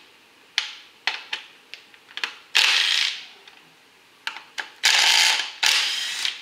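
Cordless power driver with a 10mm socket spinning out the ignition coil hold-down bolts in short bursts: one brief run a little over two seconds in, then two longer runs near the end. Sharp clicks of the socket seating on the bolts come in between.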